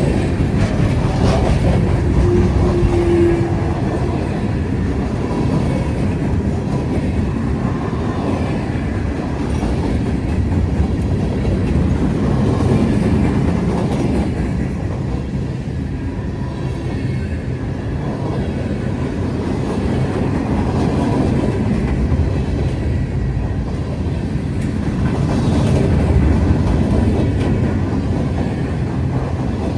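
Freight train rolling past, a steady loud rumble of wheels on rail with clickety-clack over the joints. A brief steady tone rises above it about two seconds in.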